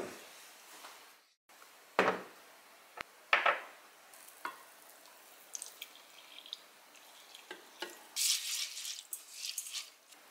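Preparing seasoned rice in a rice cooker's inner pot: the pot is set down with a few sharp thuds and handled with small clicks, then water is poured over the washed rice and the rice is stirred with the seasonings, giving a wet scraping hiss near the end.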